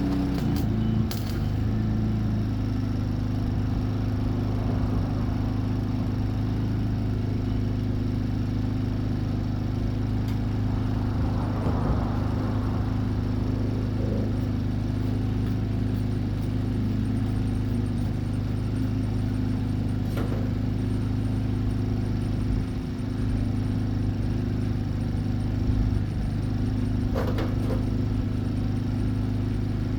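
Steady low machine hum from running shop equipment, with a few light clicks about two-thirds of the way through and again near the end.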